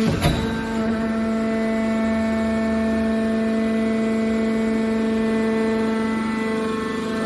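Hydraulic scrap metal baler shear's power unit running with a steady, pitched hum, with a single sharp knock right at the start.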